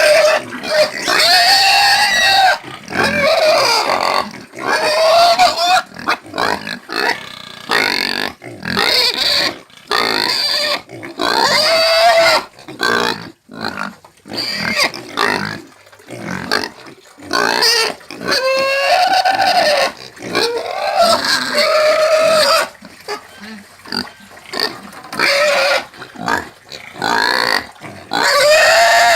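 Domestic pigs squealing: short, high, pitched calls one after another with brief gaps between them.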